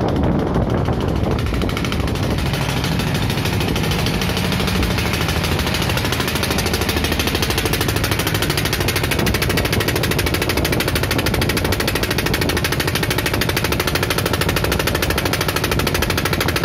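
A motorboat's engine running steadily with a rapid, even pulse.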